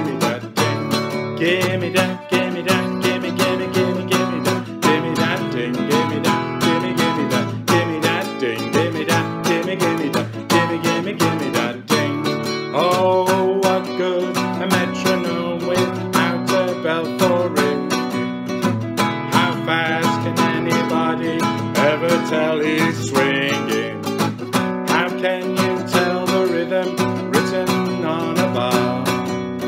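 Acoustic guitar strummed in a steady, regular rhythm, with a man singing along.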